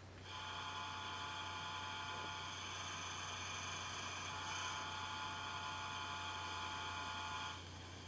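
OO gauge Class 37 model's DCC sound decoder playing the diesel idling: a steady low hum with several high, steady whistling tones over it, dropping in level near the end.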